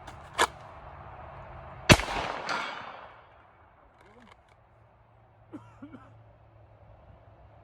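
A sharp click, then about two seconds in a single pistol shot fired from a quick draw at a steel plate 100 yards out, its report trailing off over about a second.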